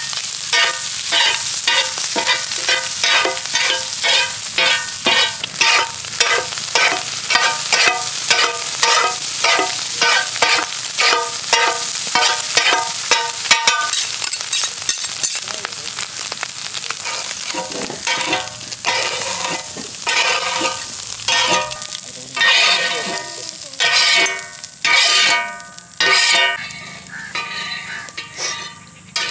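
Metal ladles scraping and clanging on a large iron tawa, stirring squid rings and curry leaves, with a ringing stroke about twice a second over the sizzle of the frying oil. About halfway through, the strokes become slower and irregular.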